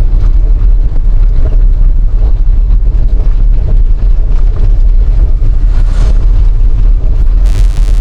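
Strong wind buffeting the microphone while travelling along a road, a loud, uneven low rumble, with vehicle noise underneath.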